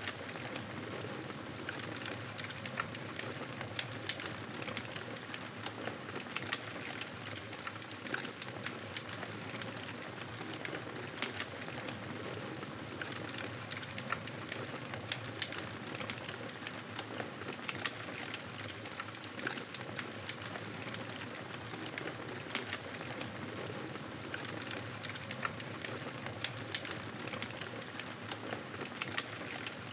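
Campfire burning: a steady hiss of burning wood with frequent sharp crackles and pops scattered irregularly throughout.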